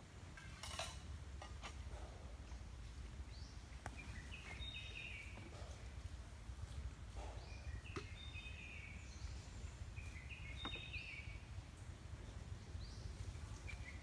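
Wild birds singing in forest: one bird repeats a short, high, stepped phrase about every three seconds, with a few faint chirps between, over a steady low rumble.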